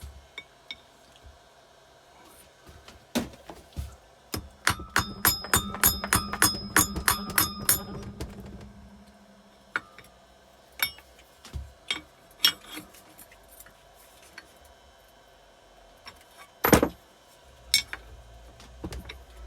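Hand tools and engine parts knocking and clinking on metal. In the middle comes a run of about four sharp, ringing metal taps a second, and near the end there is a single loud clank.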